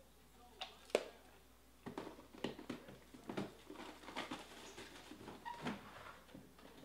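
A sharp knock about a second in, then a quick, irregular run of clicks and knocks lasting several seconds.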